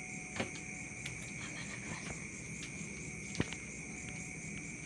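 Steady high-pitched chorus of crickets chirping in the background, with two short sharp clicks, one about half a second in and one a little after three seconds.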